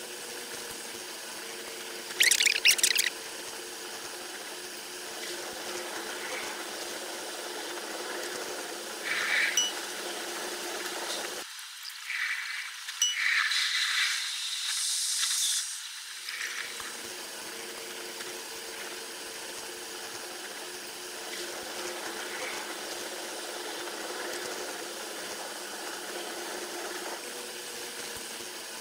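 Sound of a train running on rails, played ten times too fast: a steady high-pitched hiss with a faint hum. There are short sharp squeals about two seconds in and again in a cluster around the middle.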